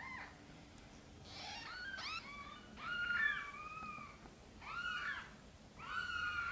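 Newborn kittens mewing: about five bouts of thin, high-pitched cries that rise and fall, sometimes two voices overlapping.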